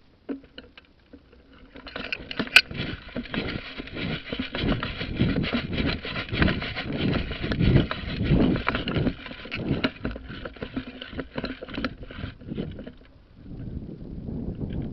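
Close rustling and knocking movement noise, as of someone moving about with gear, starting about two seconds in and easing off briefly near the end. One sharp click about two and a half seconds in is the loudest sound.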